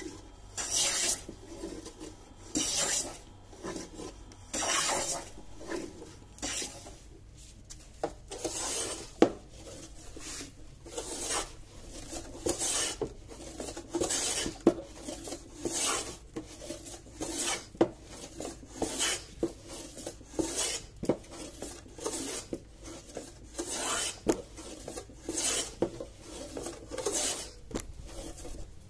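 Hand plane shaving an old weathered wooden board: a steady series of scraping strokes, about one a second after slower strokes in the first few seconds, with an occasional sharp knock of the plane on the wood.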